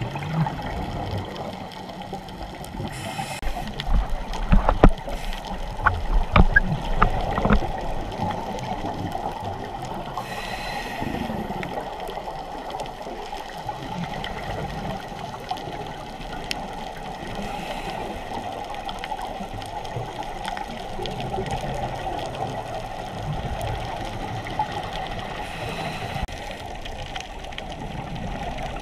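Underwater sound picked up by a dive camera in its waterproof housing: a steady muffled water rush with bubbling, and a cluster of louder knocks and gurgles between about four and eight seconds in.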